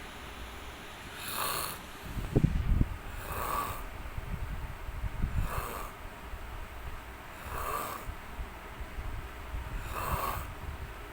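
A man snoring in his sleep, a snoring breath about every two seconds, with one louder, low snore about two and a half seconds in.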